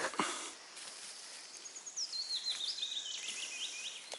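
A small bird singing a quick run of high, chirping notes that step down in pitch, starting about halfway in, over a faint high hiss. A light click or two at the very start.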